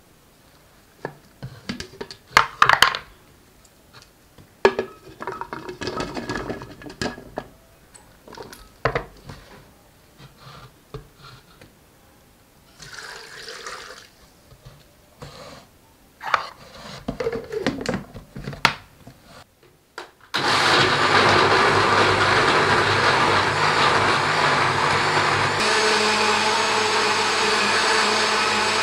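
Pieces of chopped ginger and carrot clatter into a plastic blender jug, and water is poured in partway through. About two-thirds of the way in an electric countertop blender starts and runs steadily at full speed, a loud motor whir pureeing the carrot and ginger into juice.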